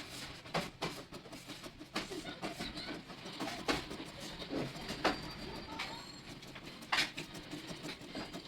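Scratch-off lottery card being scratched off: short, irregular scraping strokes on the card's coating, with a few louder scrapes among them.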